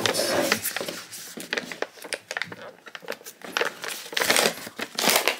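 Paper ice-cream-pint blind box being opened by hand: crinkling and rustling as the cup is turned and its lid is peeled off, getting louder and busier near the end.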